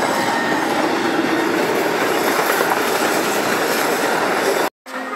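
Passenger train coaches rolling past on the track: a steady, loud noise of wheels on rails, which cuts off abruptly near the end.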